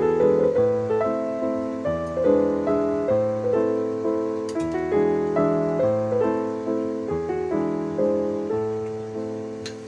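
Background piano music: a gentle melody of notes that each strike and fade.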